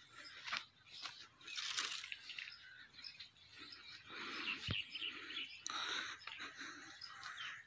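Outdoor ambience of small birds chirping, over rustling and crunching noises, with one sharp click a little past halfway.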